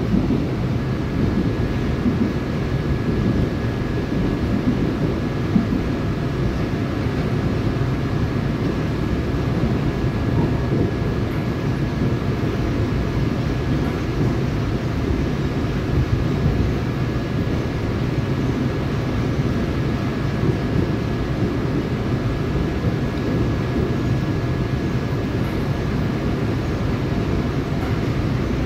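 Seoul Subway Line 4 electric train running at speed, heard from inside the passenger car: a steady low rumble of wheels on rails. A faint steady high tone begins about a second in.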